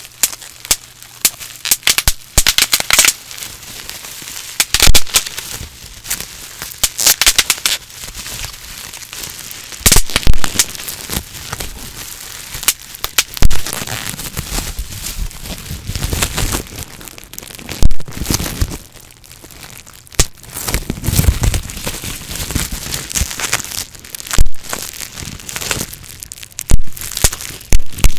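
Plastic bubble wrap being popped by hand right at the microphone: sharp pops, single or in quick runs of several, with the plastic crinkling between them.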